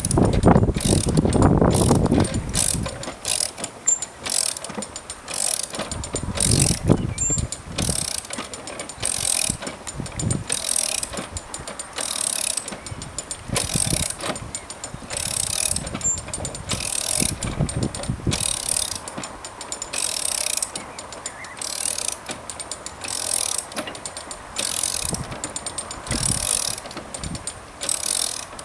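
Ratchet windlass pumped back and forth on a canal lock paddle spindle, a short burst of metal ratchet clicking on each stroke, about one a second, as the paddle gear is wound up. Heavier low knocks in the first couple of seconds.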